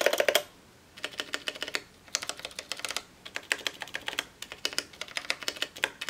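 Keys of a Drop CTRL mechanical keyboard pressed in several quick runs of clicks with short pauses between them. This demonstrates its stabilized keys, whose stabilizers have been clipped, lubed and band-aid modded.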